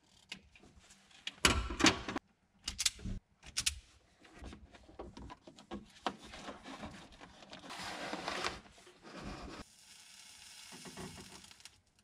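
Handling noises of someone at work: irregular knocks, rattles and rustling, loudest in a few sharp thumps about two seconds in, with a softer steady hiss near the end.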